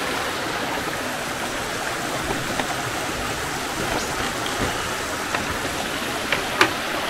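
Steady rush of a small rocky stream flowing below a footbridge, with a few light clicks near the end.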